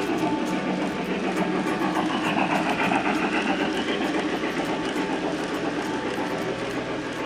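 Model train, a Mikado steam locomotive pulling passenger cars, rolling past close by: wheels running on the track with light clicking, the sound swelling loudest about two to four seconds in as the cars go by.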